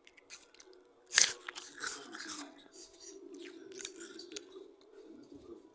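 A loud crunch as a crisp apple is bitten into about a second in, followed by a few seconds of crunchy chewing.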